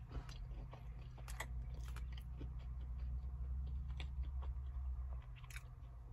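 A person chewing a mouthful of fried catfish and shrimp po' boy, with small wet clicks and crunches, over a steady low hum that stops about five seconds in.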